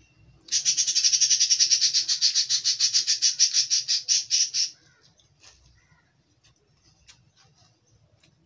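A bird calling: a fast run of loud, high chirps, about seven a second, that stops abruptly after about four seconds.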